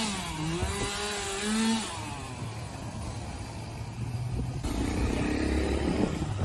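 A small engine revving, its pitch dipping and rising for about two seconds, then settling into a low steady hum. Noisier sound with scattered clicks follows near the end.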